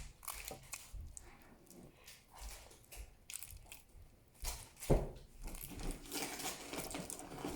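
Sticky homemade glue slime being stretched and kneaded by hand like taffy, giving irregular soft crackles, clicks and squelches, with a louder one about five seconds in.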